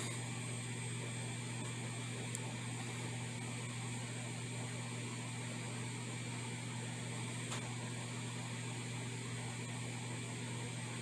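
Steady low hum with an even hiss under it, and a faint tick about two seconds in and again near eight seconds.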